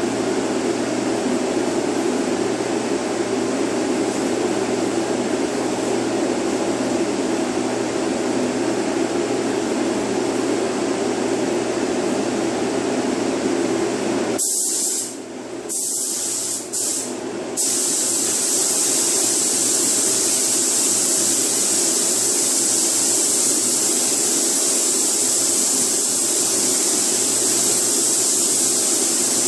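Steady fan-like rushing air. About halfway in, a paint spray gun starts hissing as it lays on clear coat, cuts out briefly two or three times as the trigger is released, then sprays continuously.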